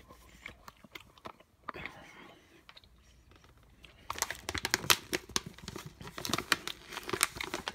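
Plastic snack pouch crinkling as it is handled, a dense run of crackles in the second half after a quieter start.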